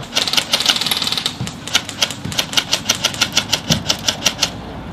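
Airsoft guns firing: a fast run of shots in the first second, then a string of sharp shots about six a second that stops shortly before the end.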